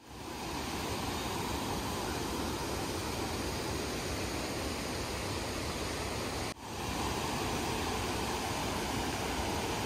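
Water rushing over a low river weir and down rocky rapids, a steady whitewater rush. It cuts out briefly about two-thirds of the way through, then carries on the same.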